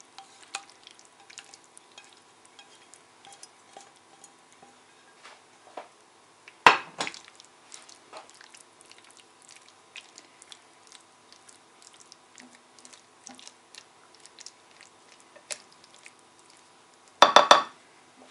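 Thick creamy mushroom sauce scraped from a frying pan into a glass baking dish and spread with a silicone spatula: soft wet scraping and small clinks throughout. A loud knock comes about a third of the way in, and a quick clatter of several knocks near the end.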